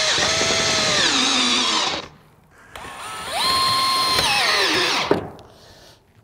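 Cordless drill driving screws through the tabs of sheet-metal reglet flashing trim: two runs of about two seconds each, the motor's whine dropping in pitch at the end of each as the screw draws tight.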